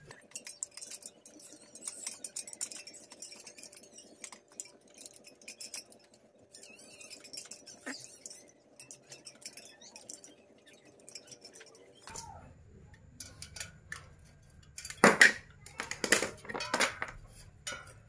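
Small hand tube cutter being worked around a refrigerator capillary tube, giving light metallic scraping and clicking, with a few louder metal clinks about fifteen seconds in.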